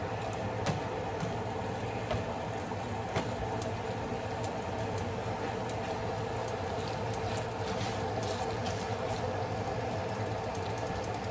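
Chicken pieces sizzling in butter in a frying pan, with scattered small pops and crackles over a steady mechanical hum.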